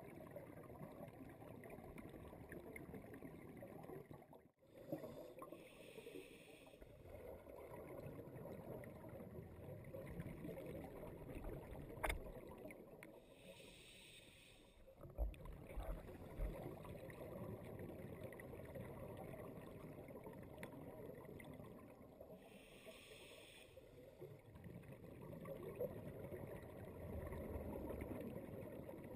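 Scuba diver breathing through a regulator, heard underwater. There are three hissing inhales roughly eight to nine seconds apart, with the low rumble of exhaled bubbles between them. A sharp click comes about twelve seconds in, and a few dull knocks follow a few seconds later.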